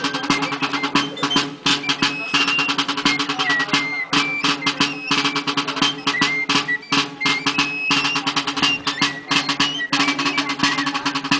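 Basque masquerade dance music: a high flute melody in short held notes over fast, steady drumming, with a steady low drone beneath.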